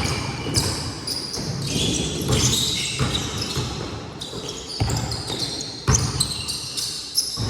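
Basketball game in play: a ball bouncing on the court, with repeated low thumps and many short, high squeaks scattered throughout.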